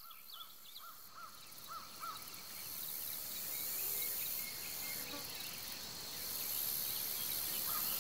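Tropical forest ambience: a steady high insect drone with stretches of pulsing buzz. A bird repeats short rising-and-falling calls during the first two seconds. The whole sound grows louder over the first few seconds.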